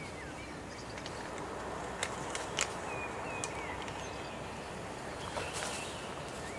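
Forest ambience: a steady background hiss with several short bird chirps, and a few sharp clicks and rustles of dry fallen leaves, two to three seconds in and again near the end, as someone kneels and moves on them.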